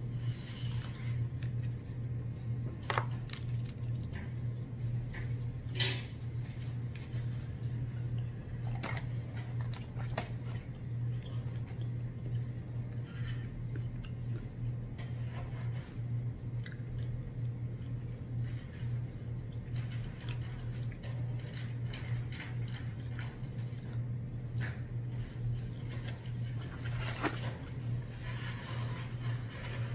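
Close-up eating sounds: chewing fried catfish and fries, with scattered small clicks and crackles of hands and a plastic fork on the food, paper liner and bowl. A steady low hum runs underneath.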